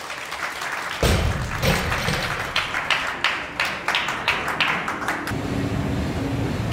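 A heavy thud about a second in, like a loaded barbell dropped onto the lifting platform, followed by a few seconds of scattered clapping.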